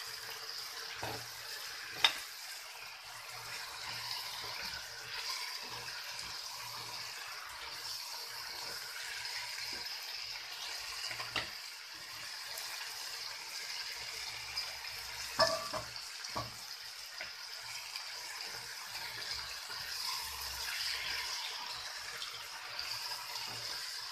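Thick onion-tomato gravy with peas and mushrooms sizzling steadily in a kadhai on a gas flame, with a few sharp knocks, the loudest pair a little past halfway.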